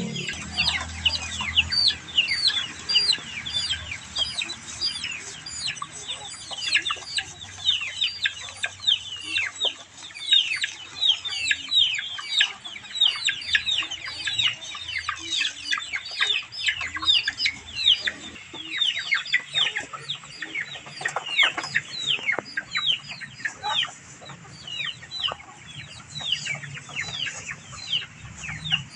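A flock of young white chickens peeping without a break: many short, high, falling peeps overlapping one another.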